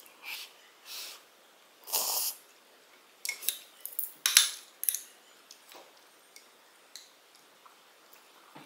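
Close-miked eating sounds from a bowl of spicy tofu soup: a few short soft slurps from a wooden spoon, the loudest about two seconds in, then a cluster of sharp clicks and taps between about three and five seconds in, with a few faint ticks after.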